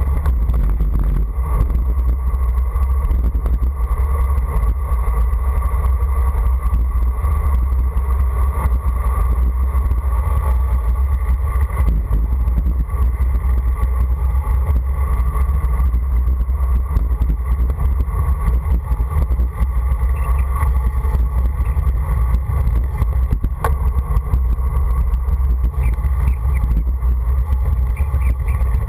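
Steady loud rumble of wind buffeting the microphone, mixed with tyres rolling on asphalt, as a bicycle descends a paved road at speed. A single sharp tick comes late on.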